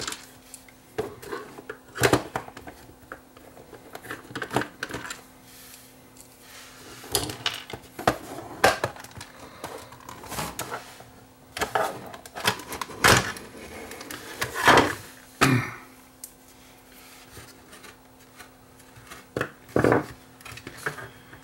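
Irregular clicks, knocks and clatter of a plastic LED sign housing being handled and unscrewed with a screwdriver, the case halves knocking as the housing is opened.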